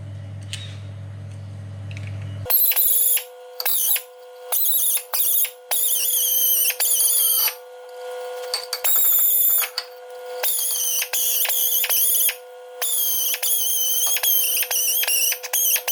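Compressed-air blow gun fired in repeated short bursts, a whistling hiss, blowing brake dust and dirt off the brake parts. It starts about two and a half seconds in, over a steady hum.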